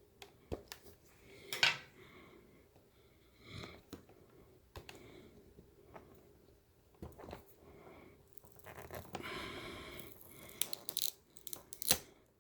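Handling noise from a laptop LCD panel and its flat display cable being disconnected: scattered light clicks and taps, with a rustling, scraping stretch of about two seconds near the end.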